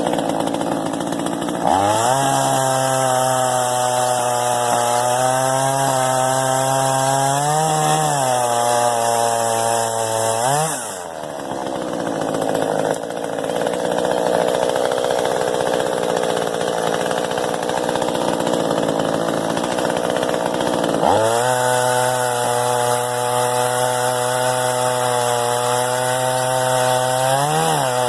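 Small two-stroke top-handle chainsaw revving up to high speed while cutting brush. It holds a steady high note with brief pitch rises, drops back about 11 seconds in, then revs up again about 21 seconds in.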